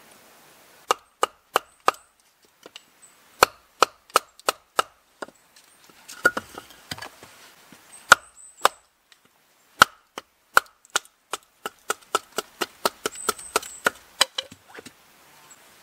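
Batoning kindling: a wooden baton knocking on the spine of a knife to drive it down through a stick resting on a wooden chopping block. Sharp wooden knocks come in short runs of a few strikes with brief pauses, quickening into a denser run near the end.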